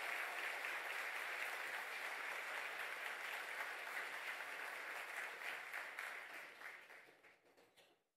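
Audience applauding, a steady wash of clapping that fades away over the last two seconds, the last few separate claps still audible as it dies out.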